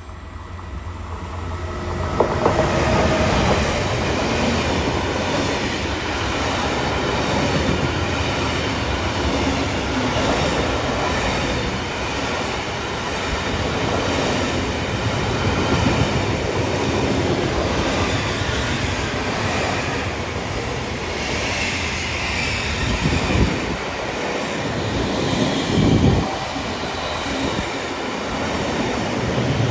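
Freight train passing through, getting louder over the first two seconds, then a steady rumble of wagons with wheels clattering over the rails and some wheel squeal.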